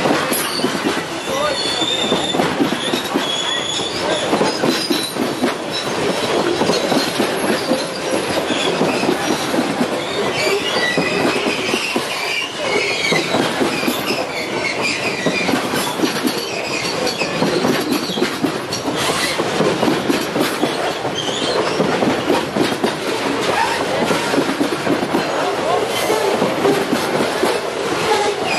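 Freight train hopper wagons rolling past close by: a steady loud rumble and clatter of steel wheels on the rail, with short high-pitched wheel squeals that come and go.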